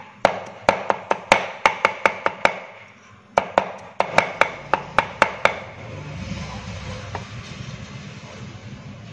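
Cleaver mincing garlic and chili on a wooden chopping board: quick knocks about three to four a second, a short pause about two and a half seconds in, then more chopping. From about six seconds in, a duller rasp as the blade scrapes the minced garlic across the board.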